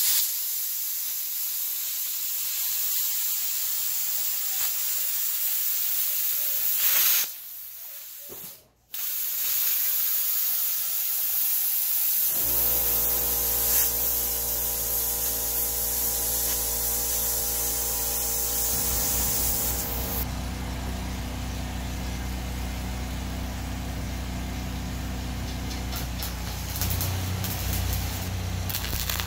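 Wire-feed welder arc hissing and crackling as a bead is run on the steel grill barrel, with a short break around eight seconds in. A steady low hum joins about twelve seconds in, and the welding hiss stops about twenty seconds in, leaving the hum.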